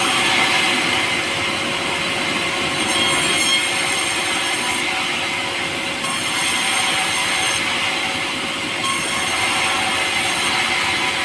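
A power saw cutting through pulai, a light, soft timber: a steady running noise with a high whine that comes and goes every couple of seconds.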